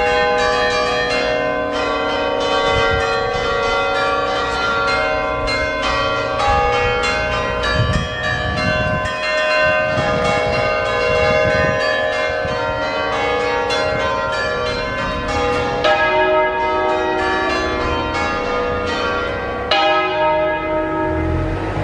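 Peal of church bells from an eight-bell ring with its tenor in E-flat, many bells sounding together in rapid, overlapping strokes that ring on over one another. The strokes grow sparser near the end.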